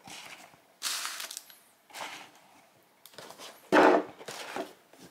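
Small cardboard boxes of hypodermic needles being picked up, moved and set down on a table: a few short rustling, scraping bursts, the loudest about four seconds in.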